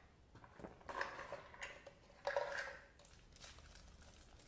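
Packaging being opened and handled: irregular rustling with small clicks and knocks, the loudest rustle a little past the middle.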